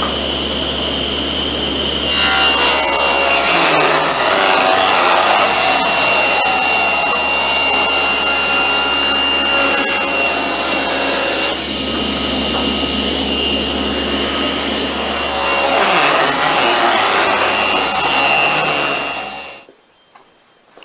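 Table saw running steadily, then ripping a narrow hardwood strip for a miter-slot runner: loud cutting from about two seconds in to about eleven seconds, easing off, then cutting again from about sixteen seconds. The sound stops abruptly just before the end.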